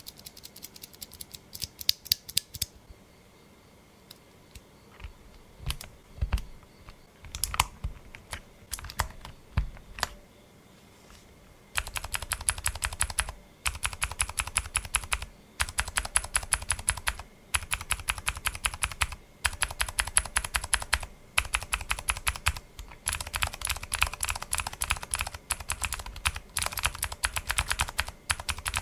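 Mechanical keyboard with clicky Cherry MX Blue switches being typed on: a quick run of keystrokes, then scattered single presses, then from a little before halfway, bursts of fast typing with short pauses between them.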